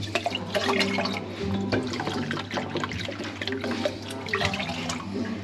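White vinegar being poured into the pickle brine, splashing, with background music playing.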